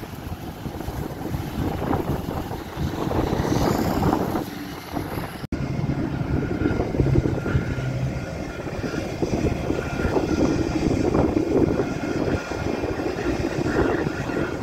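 Jet engines of a Spirit Airlines Airbus airliner running as it rolls slowly on the runway: a steady rush with a thin high whine, mixed with wind gusting on the microphone. The sound cuts out for an instant about five seconds in.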